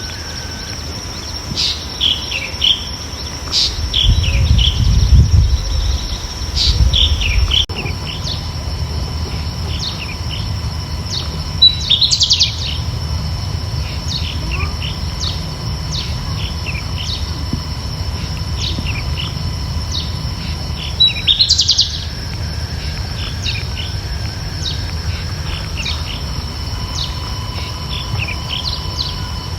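Nature recording of songbirds chirping: many short chirps and calls over a steady high insect-like drone and a low rumble. A louder rising call stands out about twelve seconds in and again about nine seconds later.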